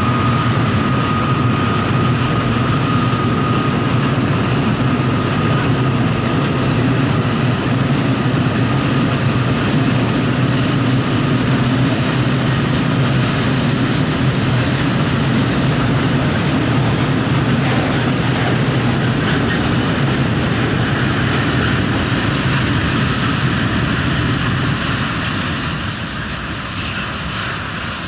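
Class 66 diesel-electric locomotive's two-stroke EMD V12 running under load as it hauls a freight train past, with a thin steady whine in the first few seconds, then the freight wagons rolling by. The sound eases off near the end as the train moves away.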